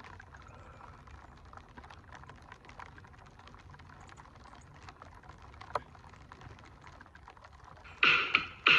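Freezing rain ticking and pattering on ice-glazed surfaces close by: a faint, even spread of small clicks, with one sharper click partway through. Near the end, loud music with a beat starts abruptly.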